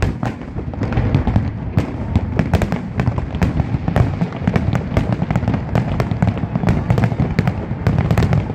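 Aerial fireworks display with many shells bursting in quick succession: a dense run of sharp cracks and pops over a continuous low rumble of booms.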